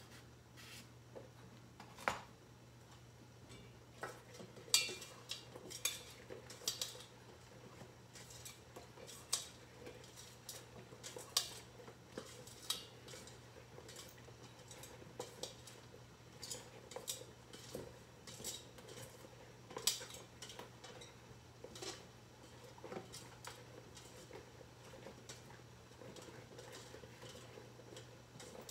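Covered stainless pan of crab in coconut milk simmering on a glass-top electric stove, with irregular sharp clicks and light taps of the lid and the bubbling contents over a steady low hum.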